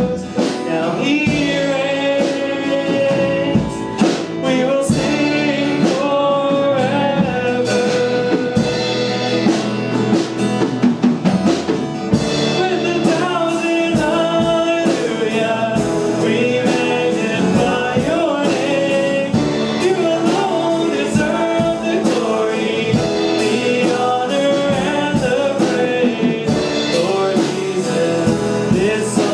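Live worship band playing a song with singing, drum kit and guitar.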